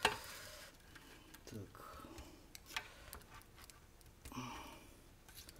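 Small clicks and scrapes of fingers and a tool working a tight cable connector loose from a monitor's circuit board in its perforated metal shield. A sharp click at the very start is the loudest sound, with a few lighter clicks later.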